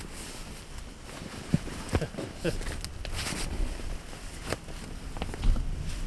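Scattered soft thumps and crunches of people moving about in deep snow, over a low rumble.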